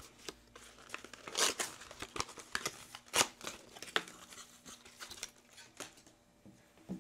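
Clothing packaging being torn open and crinkled, a run of sharp rips and rustles. The loudest rips come about a second and a half and three seconds in, and it dies down near the end.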